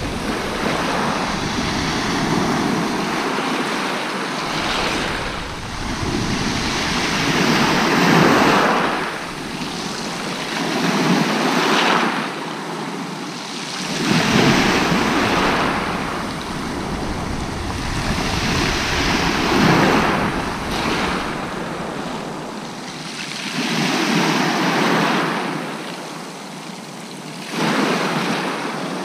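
Sea waves breaking and washing up the beach close by, the rush of surf swelling and falling away every few seconds, with some wind on the microphone.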